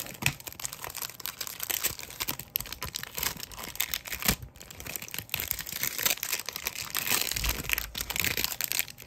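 The plastic wrapper of a Tim Hortons 2022-23 NHL trading-card pack being crinkled and torn open by hand: a steady run of rustles and small crackles.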